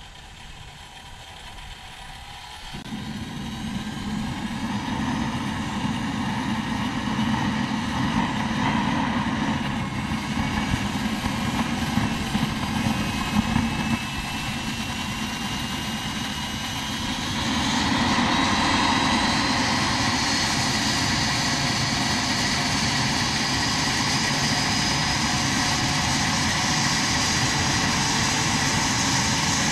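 Small turbine engine of a Vario MD600N model helicopter spooling up. A thin whine climbs slowly in pitch and a rushing noise comes in about three seconds in. About halfway through it gets louder and the whine rises higher, then holds steady at speed.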